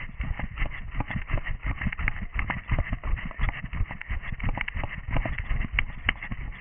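A runner's footsteps picked up by a head-mounted camera: a steady rhythm of footfalls, about three a second, with the camera jostling.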